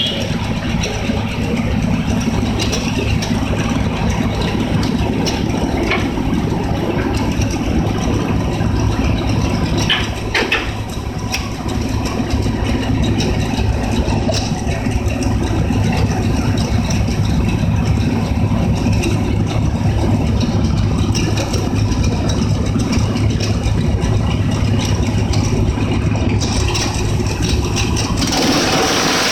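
A machine's engine running steadily at idle with a low rumble. Near the end the rumble drops away and a louder hiss takes over.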